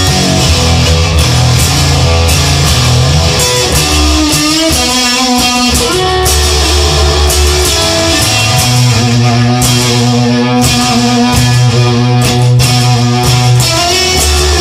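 Instrumental rock music led by guitar, with a bass line and a steady beat.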